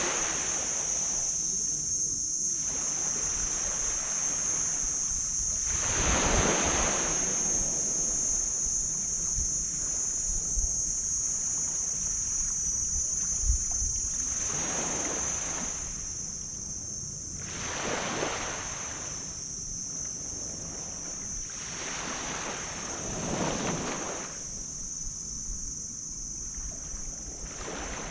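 Small tropical waves breaking and washing up on a black sand beach, each surge swelling and fading every few seconds. A steady high-pitched hiss runs underneath throughout.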